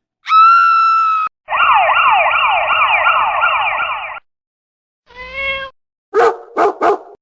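Cartoon sound effects: a held whistle-like tone for about a second, then a fast, repeating up-and-down siren-like warble for about two and a half seconds, then a short pitched cry and three quick yelp-like cries near the end.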